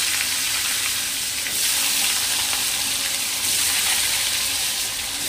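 Raw potato pieces frying in hot oil in a kadhai: a steady sizzle that sets in as the cut potatoes are added to the oil.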